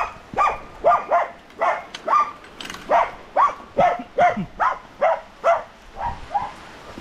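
A dog barking over and over, about two barks a second, the last couple fainter near the end.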